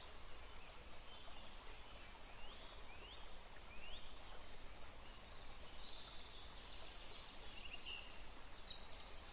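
Faint background ambience with a few short rising chirps about two and a half to four seconds in, and a higher hiss later on.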